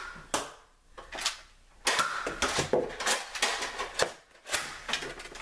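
Clatter of a Nerf battle: irregular sharp plastic clicks, clacks and knocks from toy blasters being worked and fired, and darts striking things. There is a short lull after the first half second, then a dense run of clicks from about two seconds in.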